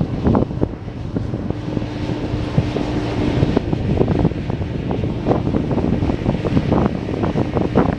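Heavy, gusty wind buffeting on the microphone, over the diesel engine of a 2003 Mack CH600 truck tractor driving slowly some way off.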